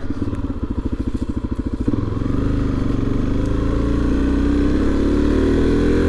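Motorcycle engine while riding: a low, even putter of firing pulses for about two seconds, then the note thickens and the revs climb slowly through the rest.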